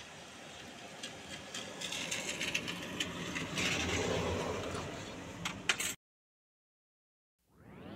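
Truck pulling away in rain, heard from inside the cab: a steady noisy rumble with rattles and sharp clicks, growing louder in the middle. It cuts off abruptly about six seconds in, and music fades in near the end.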